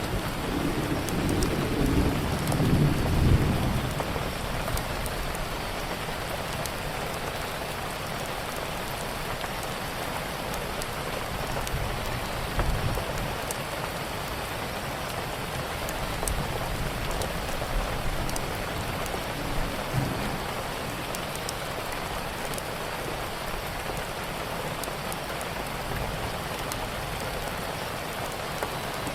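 Steady rainfall, with a low rumble of thunder swelling and dying away in the first few seconds. Faint fireplace crackles are scattered throughout.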